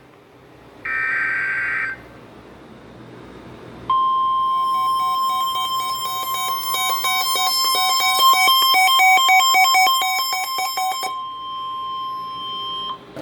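Emergency Alert System tones between two National Weather Service statements. About a second in comes a short burst of screeching data tones, the digital alert header. From about 4 s a steady single-pitch alert tone near 1 kHz sounds for about nine seconds, with a fast electronic beeping pattern over it until about two seconds before the tone stops.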